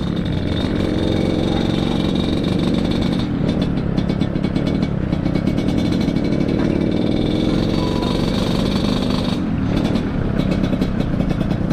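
Yamaha RX King 135 cc two-stroke single engine running steadily through an underslung 'kolong' expansion-chamber exhaust, set up Medan-style for a 'ngorok' snoring rasp.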